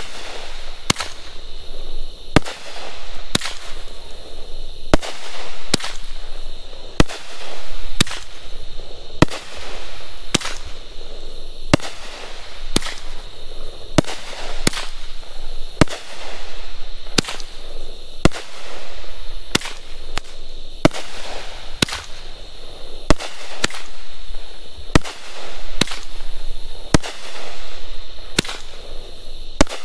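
Dominator 'Executioner' 500-gram, 20-shot consumer firework cake firing: a long run of sharp bangs, shots launching and breaking overhead, about one every second or so, with a swell of noisy hiss after each.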